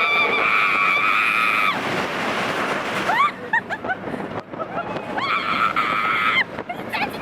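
Roller coaster riders screaming: a long held scream that rises at the start, a run of short shrieks, then a second long scream about five seconds in, over a steady rush of ride noise.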